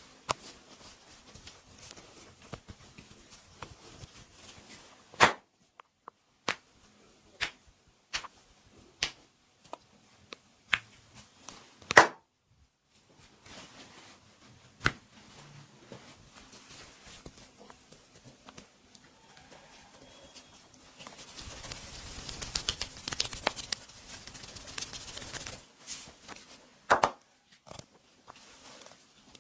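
Hands working on a client during a barber's massage, with a string of sharp cracks and clicks of the kind made by cracking joints, three of them much louder than the rest. About two-thirds of the way through comes a few seconds of brisk, dense hand work on skin.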